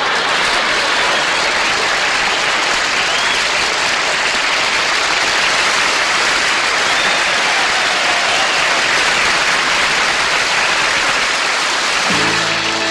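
Studio audience applauding at length after a comedy punchline. Near the end, country-style music with fiddle starts.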